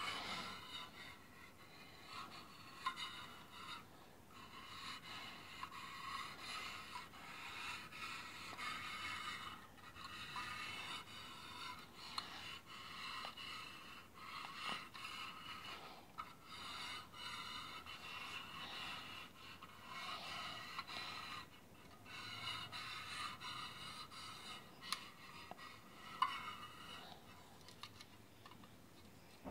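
An American Girl doll-sized mini violin being bowed to play a tune: faint, thin, scratchy notes that change every second or so.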